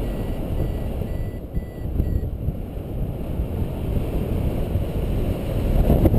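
Wind rushing over the camera microphone of a paraglider pilot in flight, steady and growing louder near the end. Over it a paragliding variometer beeps in short, quick repeated tones, about three a second, stopping about two seconds in; these beeps are the sign of the glider climbing in lift.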